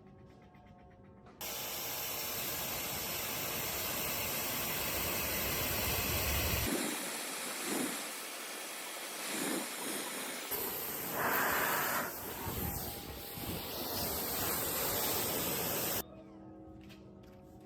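A loud, steady hiss that starts abruptly about a second and a half in and cuts off suddenly near the end.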